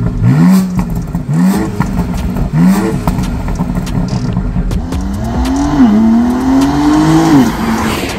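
2022 BMW X4 M Competition's twin-turbo straight-six revving in three short rising bursts, then accelerating in a longer climb with an upshift about six seconds in, easing off near the end.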